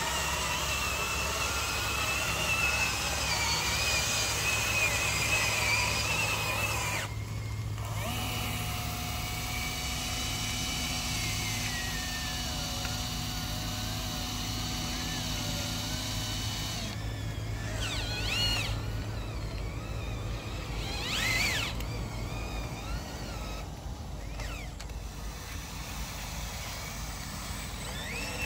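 Small electric motors and gearboxes of radio-controlled dump trucks whining as they drive through mud, the pitch rising and falling with the throttle, with a short break about seven seconds in.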